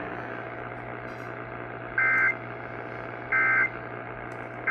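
Emergency Alert System end-of-message data bursts: short, shrill two-tone warbling bleeps, two of them about a second and a half apart with a third starting at the very end, over steady radio static and hum. This is the SAME 'NNNN' end-of-message code that closes an EAS activation.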